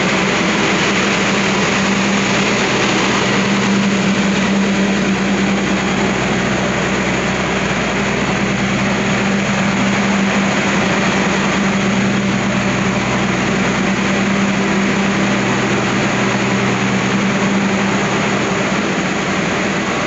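Diesel generator sets of a passenger train's power car (generator car) running steadily, giving a loud even drone with a steady low hum.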